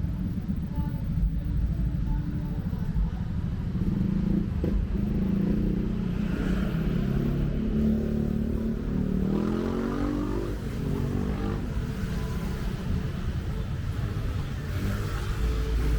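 Street traffic, cars and motorcycles running past with a steady low rumble; about nine to ten seconds in, one engine's pitch rises as it accelerates.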